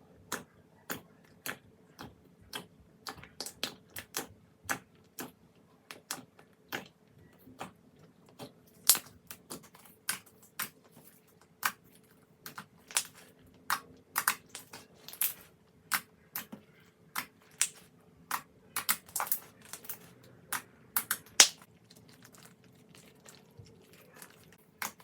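Slime being squeezed and poked, giving a string of sharp clicks and pops at irregular intervals, one to three a second.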